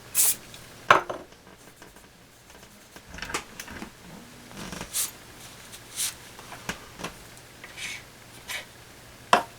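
Scattered light clicks and knocks, about one a second, from the Lansky sharpening kit being handled: hard hones and the blade clamp tapping and clinking.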